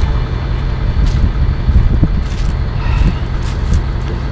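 A pickup truck's engine idling in a steady low rumble, with light footsteps crunching on dry leaves and dirt.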